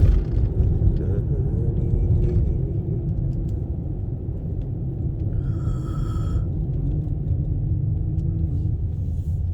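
Steady low road rumble of a car being driven, heard from inside the cabin. A sharp knock right at the start, and a short pitched beep with overtones about six seconds in.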